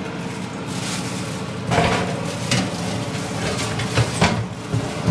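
Metal baking tray lined with foil and loaded with taco shells being slid into an oven. It gives a few clattering knocks and scrapes against the oven rack, mostly in the second half, over a steady kitchen hiss.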